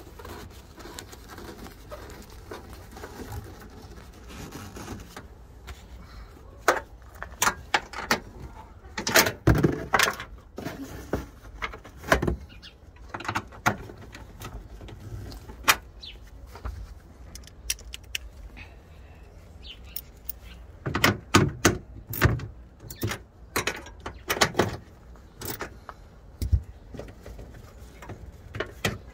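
Irregular clicks, knocks and rattles of hands working inside a car's trunk, handling the trunk-side liner and trim and small tools. They come in two busy spells, the first about six seconds in and the second about twenty-one seconds in.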